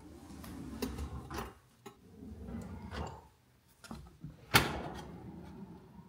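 Kitchen drawers sliding open and shut: two stretches of rumbling slide with small clicks, and one sharp knock about four and a half seconds in.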